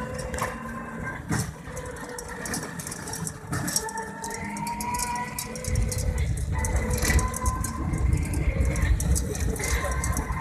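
Riding in a small motor vehicle: a steady motor whine that rises slightly in pitch, with light rattling clicks over it. A deeper road rumble grows louder about six seconds in.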